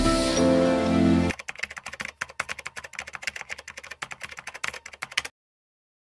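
Music for about a second, then a rapid clatter of computer-keyboard typing, a sound effect for on-screen text being typed out, which stops abruptly a little after five seconds in.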